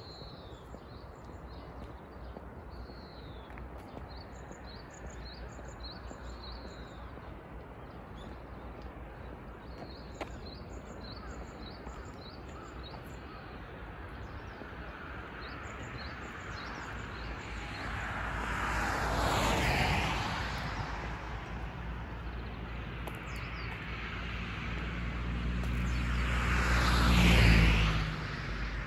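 Small birds chirping in quick repeated calls over a steady outdoor hum, then two vehicles passing close by, one about twenty seconds in and a louder one near the end whose engine note falls as it goes past.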